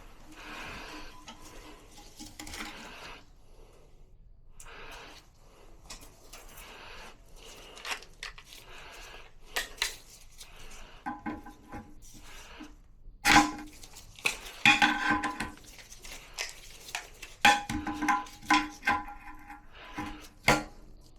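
Hard objects clinking and knocking against one another, with short ringing tones, in irregular bursts. The loudest clinks come just past halfway, with a busy run of them near the end.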